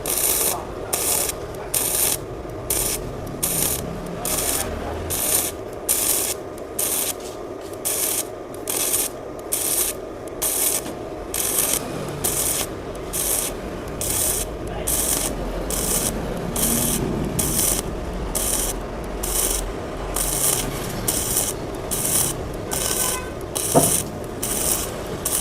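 Steel wire brush scrubbing a fresh weld bead on steel plate, in quick back-and-forth scraping strokes about two a second, with a single knock near the end.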